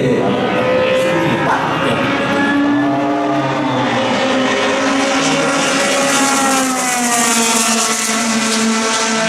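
Formula racing car engine running at high revs as the single-seater passes along the straight, its pitch sliding down as it goes away.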